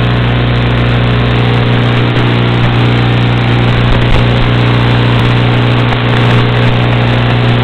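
Steady, loud electrical hum with hiss, unchanging in pitch throughout, of the kind an analog FPV camera and video-link recording picks up.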